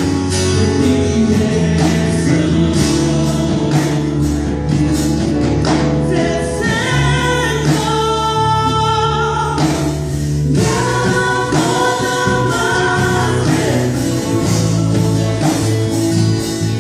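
Live band playing gospel-style worship music with drums, and several singers holding long notes together in harmony.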